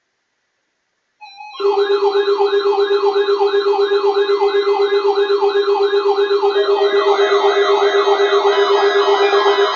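Layered electronic alarm sirens: a steady low tone under several fast-warbling siren tones, wobbling about three times a second. They start abruptly a little over a second in, more steady tones join partway through, and the low tone cuts off at the end.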